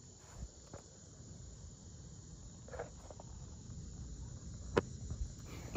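Faint steady insect chorus, crickets, over a low rumble, with a few light clicks and one sharper click near the end.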